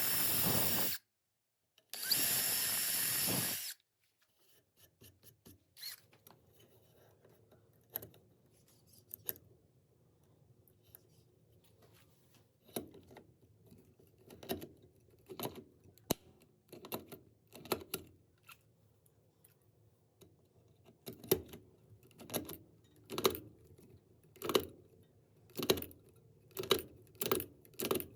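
Power drill running in two short bursts, about a second and then nearly two seconds long, followed by a quieter stretch of scattered clicks and taps that come more often, roughly one or two a second, toward the end.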